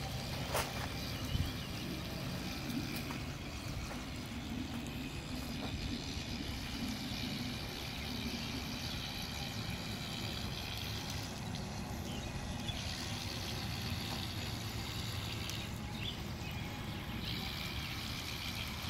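Small electric motors of a toy RC car running steadily, its spinning wheels churning and splashing through shallow water.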